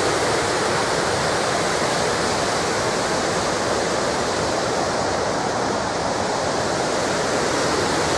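Cauldron Snout, the River Tees in spate pouring down a long rocky cascade, in a steady rush of white water.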